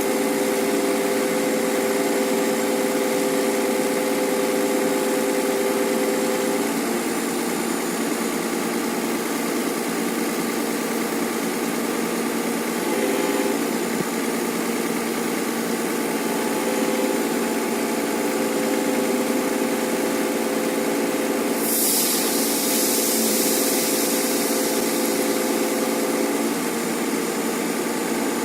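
Excavator's diesel engine and hydraulic pump running steadily, a constant hum whose pitch shifts a few times. About three-quarters of the way through comes a hiss lasting about three seconds.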